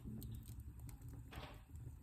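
Wood fire burning in a fireplace: a low steady rumble with sparse faint crackles and a short hiss about one and a half seconds in.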